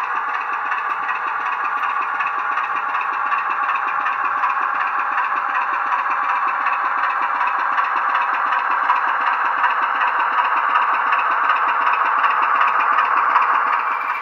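Model diesel locomotive's DCC sound decoder (Legomanbiffo sound file) playing a diesel engine running through the model's small on-board speaker, a steady, even beat that grows slowly louder as the locomotive comes closer.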